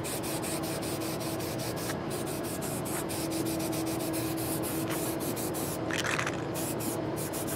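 Aerosol spray can of filler primer spraying in a steady hiss as the first light coat goes on.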